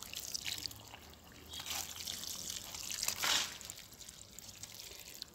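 Water trickling and pouring onto soil as freshly planted saplings are watered, swelling briefly about three seconds in.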